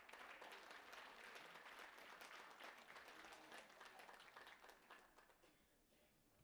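Faint audience applause, a dense patter of many hands clapping that dies away about five seconds in.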